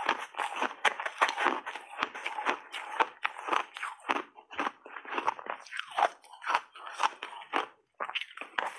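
Crunching and chewing of a mouthful of shaved ice dusted with matcha powder, about three to four crunches a second. It breaks off for a moment near the end, then a new bite starts the crunching again.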